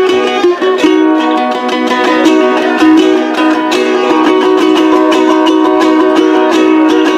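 String-band music: small plucked string instruments played in quick, repeated strokes over steady held notes.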